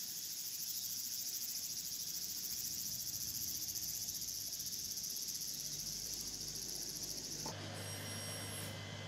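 A steady, high-pitched chorus of insects buzzing with a fast pulse. Near the end it gives way abruptly to a steady low hum.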